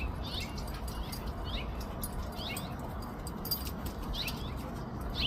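Small songbirds giving short, high chirps again and again, irregularly about once or twice a second: alarm calls at a red-tailed hawk perched near them.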